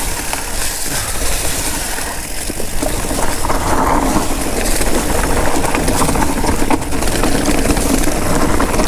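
Mountain bike riding down a narrow dirt singletrack: a steady rush of wind and tyre noise with small knocks from the bike, getting a little louder about three seconds in.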